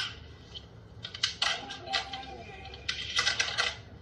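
Quick clusters of light clicks and clinks, like small hard objects clattering: one burst about a second in and another about three seconds in.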